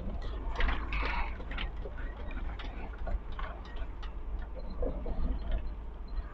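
Inside a Scania G410 truck cab driving over a rough gravel road: a steady low rumble from the engine and road, with frequent irregular clicks and rattles from the cab.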